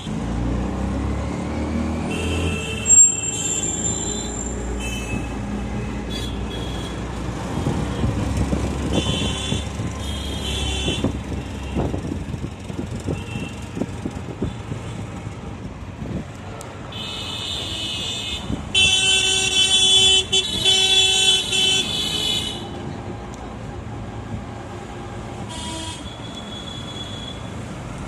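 Motor vehicle engine running through city streets, with road and traffic noise, louder in the first half. Vehicle horns honk several times, in a longer run of honks about two-thirds of the way through.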